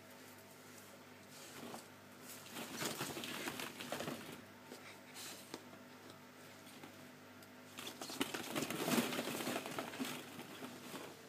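Hollow plastic ball-pit balls clattering and rustling as a Shetland sheepdog puppy scrambles through them, in two spells of rapid light clicks, about two seconds in and again about eight seconds in.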